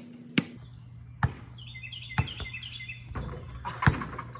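A basketball bounced on asphalt a few times, the bounces about a second apart and the loudest near the end. Birds chirp in the background.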